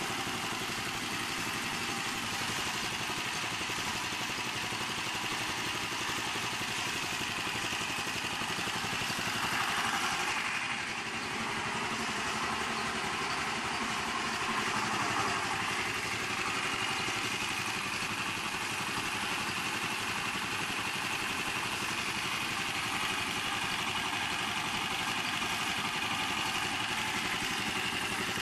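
8 HP Honda single-cylinder four-stroke engine running steadily under the load of belt-driven alternators, its gasoline cut off and hydrogen from HHO dry cells feeding the intake; the owner judges from its running that it is running too rich. It swells briefly about ten seconds in.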